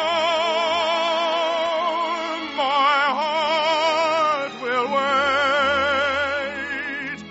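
A male operetta singer holds long notes with wide vibrato over an orchestra, moving to a new note twice, from a 1949 radio broadcast recording.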